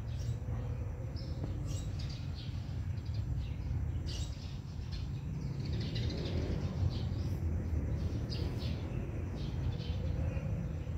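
Small birds chirping, many short high chirps scattered throughout, over a steady low rumble.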